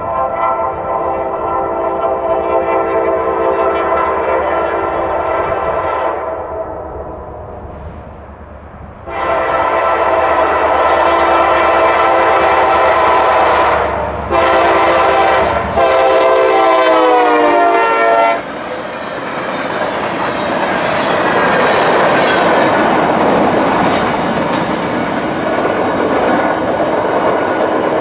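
Freight locomotive's multi-chime air horn blowing the grade-crossing signal: long, long, short, long, the last blast dropping in pitch as the locomotive passes. Then the loud, steady rumble and clatter of the freight cars rolling by.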